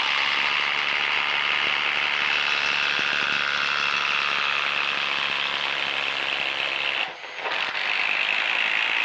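Milwaukee M18 Fuel impact driver hammering under load as it drives a 1¼-inch spade bit through a wooden beam. It runs steadily, drops briefly just after seven seconds, then runs on.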